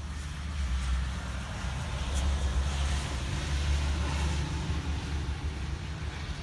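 Blizzard wind gusting and buffeting the microphone, a deep rumble with a rushing hiss that swells in the middle.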